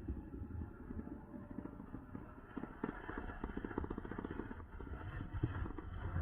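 Wind rumbling on the microphone of a moving electric bike, with rolling and rattling noise from the bike; a fast run of clattering ticks comes through the middle stretch.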